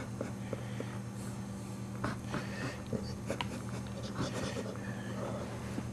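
Faint, soft sounds from a dog in labour, small rustles and clicks as she shifts on the blanket, over a steady low hum.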